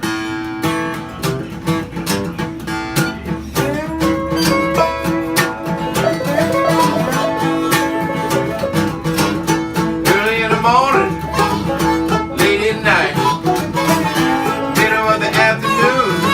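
Instrumental intro by an acoustic string band in a country-bluegrass style: picked strings keep a steady rhythm. Sliding notes come in about ten and thirteen seconds in.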